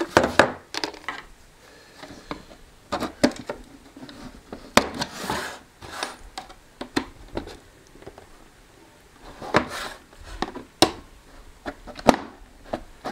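Handling noise from the opened plastic housing of a Creative D100 Bluetooth speaker: irregular clicks, knocks and short scrapes as it is turned over and set down on a tabletop. Near the end a screwdriver scrapes and clicks at a screw in the casing.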